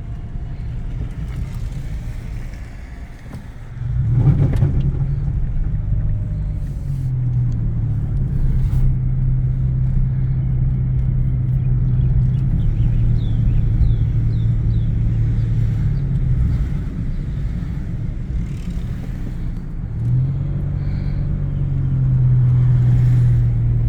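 Car engine and road noise heard from inside the cabin while driving. The engine hum gets louder about four seconds in and changes pitch several times as the car speeds up and slows.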